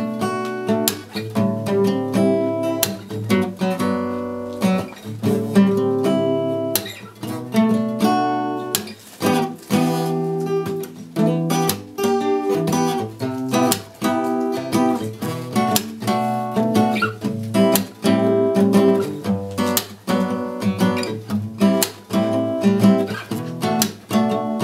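Two acoustic guitars played together in a jam: rhythmic strummed chords with plucked notes.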